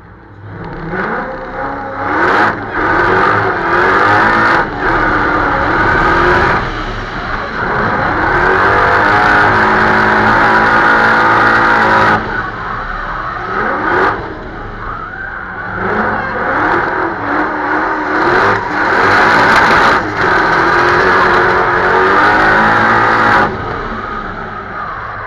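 Supercharged 4.2-litre Audi V8 with an Eaton TVS 1900 blower, in a rear-wheel-drive Audi A4 B5 drift car, revving hard through a drift run. The revs drop briefly and climb again several times.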